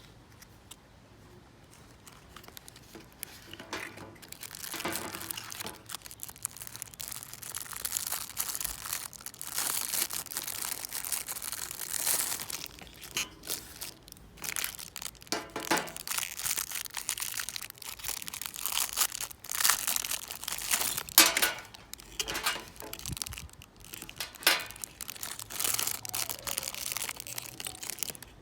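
Packaging being unwrapped by hand as an anti-snoring watch is unboxed: irregular crinkling, rustling and tearing with sharp cracks. It starts after a couple of seconds of near quiet.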